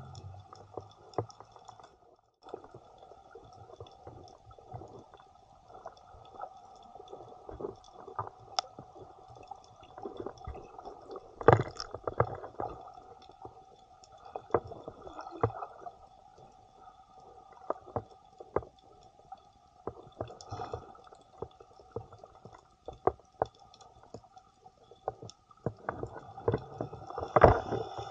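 Muffled underwater sound picked up by a submerged camera while snorkeling: a steady dull hiss with many small clicks and crackles scattered through it. Two louder splashy knocks stand out, one about a third of the way in and one near the end.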